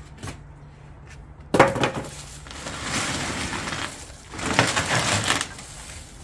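A heavy Einhell tool trolley, wrapped in plastic film on a wooden shipping frame, being turned around on a concrete floor: a sharp knock about a second and a half in, then scraping with crinkling film, and a louder bout of scraping near the end.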